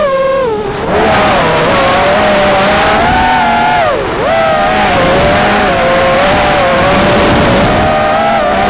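FPV quadcopter's brushless motors whining through the onboard camera, several close tones rising and falling with the throttle, over a rushing wind noise. About four seconds in the pitch drops sharply, then swoops back up.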